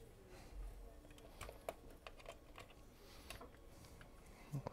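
Faint, scattered light clicks and taps, about a dozen over a few seconds, from hands handling things on a workbench, in a quiet small room. A brief, louder low sound comes near the end.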